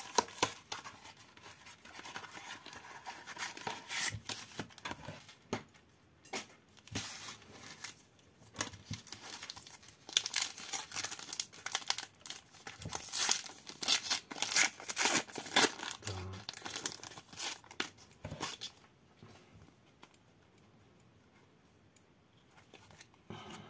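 Wrapper of a Formula 1 Turbo Attax trading-card pack being torn open and crinkled: irregular rips and rustling that die down near the end.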